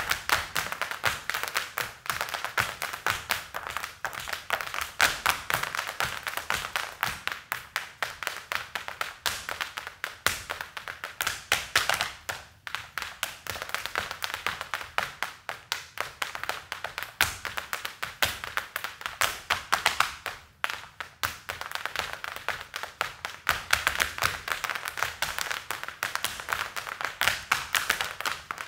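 Hard-soled Irish dance shoes of five dancers striking a hard floor in fast, rhythmic unison footwork, with no music. The beats break off briefly about twelve and twenty seconds in.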